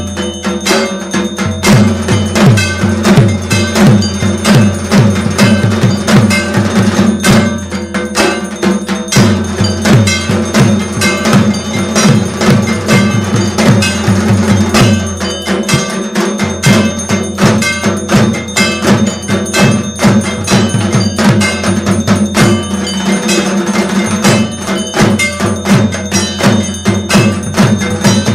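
Background music: fast, steady percussion strokes over a held low drone.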